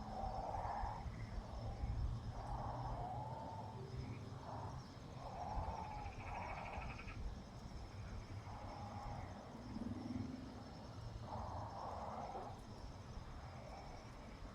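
Birds calling: short, arching calls repeated every second or two, with one brief buzzy call about halfway through, over a steady low rumble.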